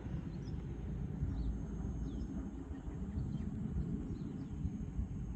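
Low, steady rumble of fighter jets flying far overhead, with faint bird chirps above it.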